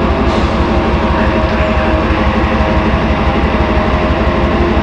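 Black metal music: a loud, steady wall of distorted sound with a few held tones and a fast pulse in the low end.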